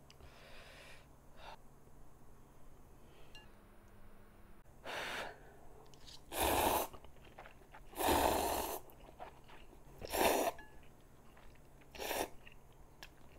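A person slurping hot instant ramyeon noodles, five slurps spread out with pauses between, the longest near the middle.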